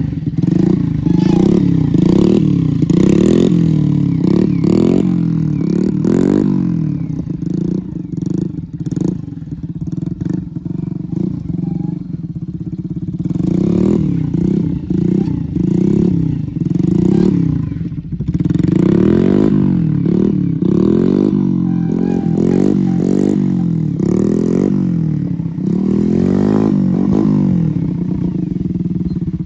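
Small motorcycle engine revved up and down over and over, its pitch rising and dropping about once a second, as the throttle is worked to hold the bike in a wheelie.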